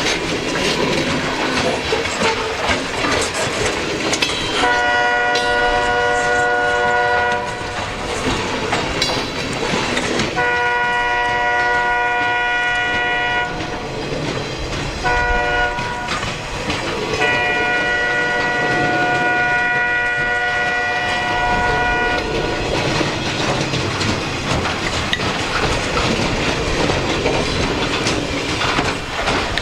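EMD SD40 diesel locomotive sounding its multi-chime air horn in the long-long-short-long grade-crossing pattern, starting about four seconds in, over the steady rumble and wheel clatter of a passing freight train.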